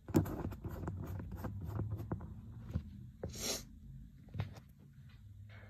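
Short rustling sniffs and scrapes, then one strong hissing sniff about three and a half seconds in, as chhinkni sneezing powder is snorted from a palm up a congested nose to bring on sneezing.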